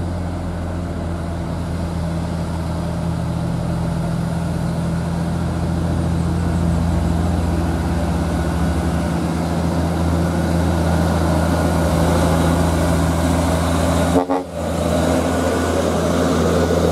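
Hino 6x2 cargo truck's diesel engine running with a steady low drone, growing gradually louder as the truck approaches. The sound breaks off for a moment about 14 seconds in, then a truck engine carries on close by.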